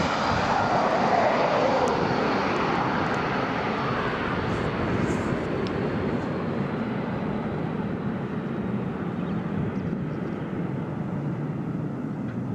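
Jet airliner's engines running close by, the pitch sweeping down over the first few seconds as it passes, then settling into a steady rumble that slowly eases off.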